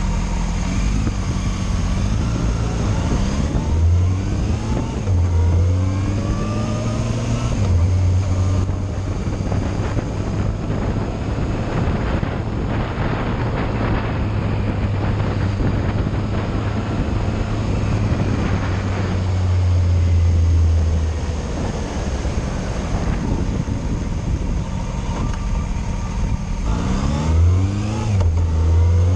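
Yamaha Fazer motorcycle engine pulling away and accelerating through the gears, its pitch rising in several steps, then running steadily at road speed before rising again near the end. Wind and wet-road noise run underneath.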